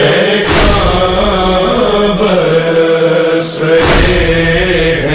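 A noha, the Shia lament for Imam Hussain, chanted by a voice in long, wavering held notes. A few heavy thuds cut across it, about half a second in and twice just before four seconds.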